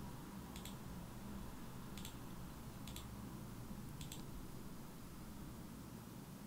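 Four faint computer mouse clicks, spaced irregularly about a second apart, over a low steady room hum.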